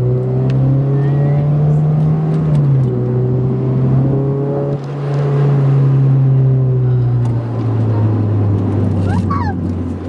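2008 Honda Civic Si's 2.0-litre four-cylinder engine, running through a catless race header and cat-back exhaust, holding steady revs, dropping in pitch about three seconds in, then slowly winding down over the last few seconds as the car is eased off.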